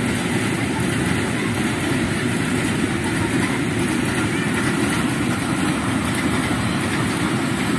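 Container freight train's wagons rolling past, a steady, loud noise of wheels running on the rails.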